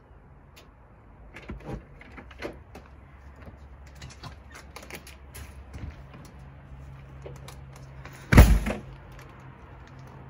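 A front door and a barred steel security screen door being unlocked and opened: a run of small clicks and rattles over a steady low hum, then a loud bang with a short ring about eight seconds in as a door shuts.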